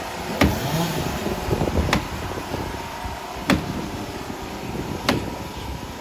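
Machinery running with a steady noise, and four sharp knocks at an even pace of about one every second and a half.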